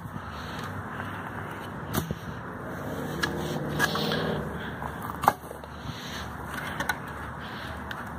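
Old wooden fence pickets being handled and sorted: a few sharp wooden knocks, the loudest about five seconds in, among scraping and crackling, over a steady low background rumble.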